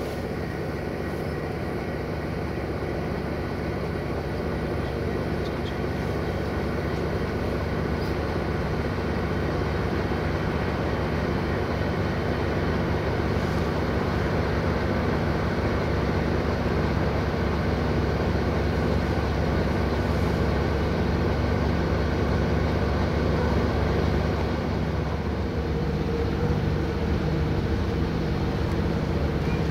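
CFR class 060-DA diesel-electric locomotive's Sulzer 12LDA28 engine running steadily, a low even drone that grows slightly louder. A higher steady tone joins near the end.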